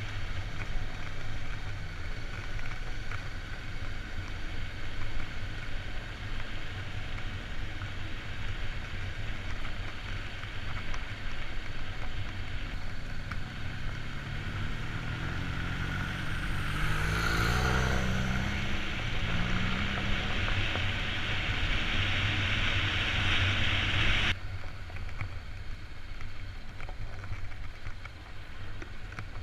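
Vehicle engine running on a trail ride under wind rumble on the microphone. Its pitch rises and falls around the middle, and a loud hiss joins it in the second half and stops suddenly near the end.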